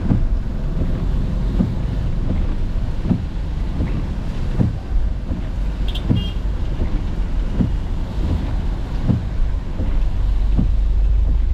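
Inside a car in heavy rain: a steady low cabin rumble of rain and slow traffic, with the windscreen wipers knocking at the end of each sweep, about once every second and a half. A brief high double beep sounds about halfway through, and the rumble gets a little louder near the end.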